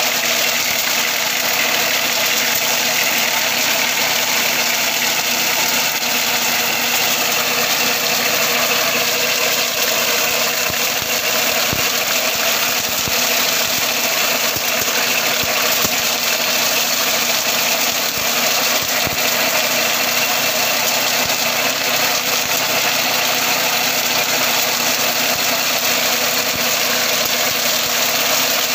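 Mini tractor engine running steadily, powering a sugarcane de-trashing machine at work.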